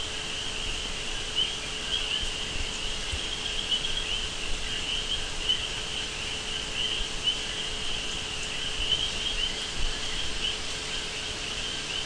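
Steady high-pitched chirring of insects in the background, pulsing without a break, over a faint steady hum and hiss.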